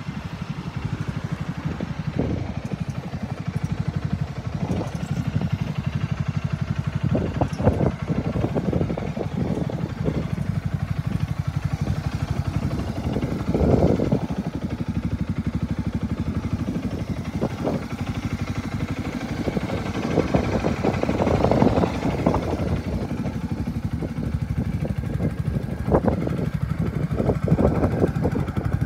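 Segway Snarler AT6 S ATV's 570cc engine idling steadily.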